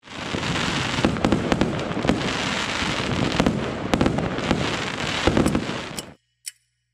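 Many fireworks going off at once: a dense, continuous crackle studded with sharp bangs, cutting off suddenly about six seconds in, followed by one short crack.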